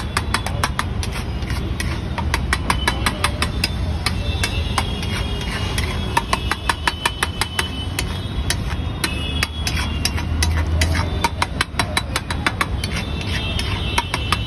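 Long-handled metal masher knocking and scraping against a large iron tawa while stirring and mashing thick ragda, a rapid, uneven clatter of several knocks a second, over a steady low hum.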